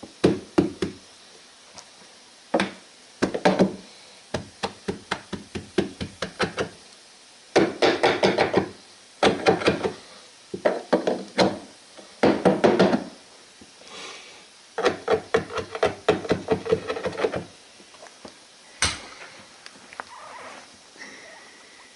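Rapid runs of tapping knocks as a carpet stair tool is struck to tuck a berber carpet edge into place at a doorway: about six to eight taps a second in bursts of a second or two, with one louder single knock near the end.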